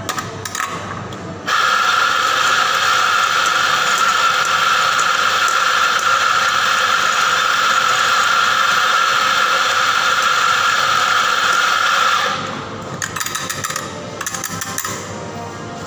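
Electric espresso grinder grinding coffee beans into a portafilter, running steadily for about ten seconds from a second and a half in and cutting off abruptly. A few light knocks and scrapes of the portafilter follow.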